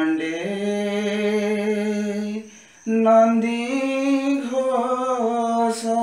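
A voice singing a slow Odia devotional bhajan melody to Lord Jagannath in long, held notes. There is a short break about two and a half seconds in, then a second phrase.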